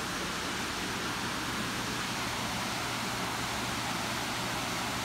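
Steady rush of a waterfall spilling over rock ledges into a pool, an even hiss without breaks, with a faint low steady hum underneath.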